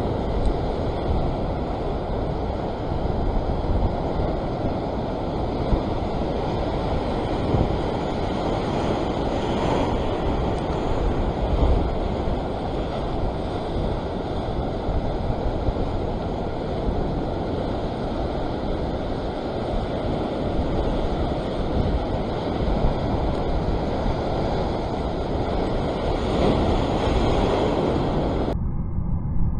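Ocean surf washing and breaking over a rocky shore, a steady, dense wash of water noise that cuts off suddenly near the end.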